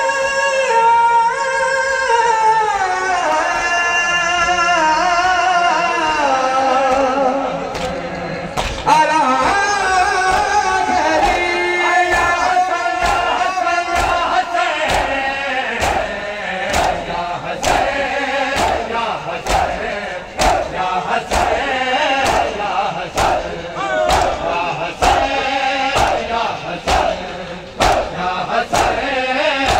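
A male noha reciter sings a mourning lament into a microphone, holding long wavering notes. About eight seconds in, the mourners start beating their chests in unison, a steady beat of sharp thumps roughly three every two seconds, while voices chant along.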